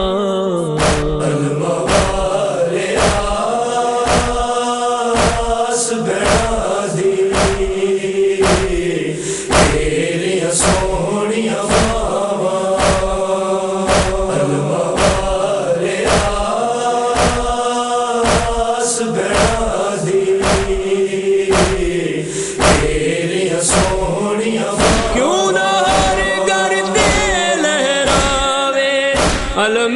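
A noha: voices chanting long, drawn-out lines in unison over a steady beat of about three strikes every two seconds, the matam rhythm that keeps time in Shia lament recitation.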